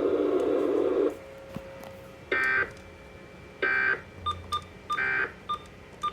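Emergency Alert System end-of-message data bursts received over a radio: three short, harsh buzzing bursts of digital tones about a second and a half apart, marking the end of the severe thunderstorm warning. Faint short beeps sound between the later bursts.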